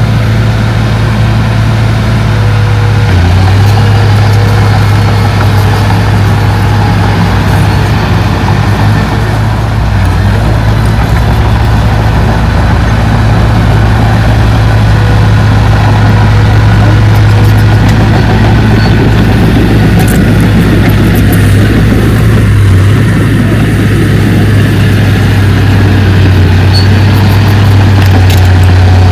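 Heavy construction machine's diesel engine running steadily and loud at close range, its pitch shifting slightly about three seconds in and again a little past twenty seconds.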